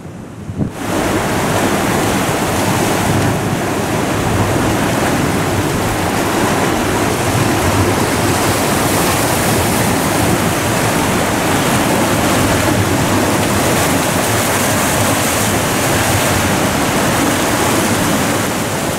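Rough, storm-driven sea surging and breaking against limestone rocks in a coastal grotto, a loud steady wash of surf that sets in abruptly about a second in, with wind blowing across the microphone.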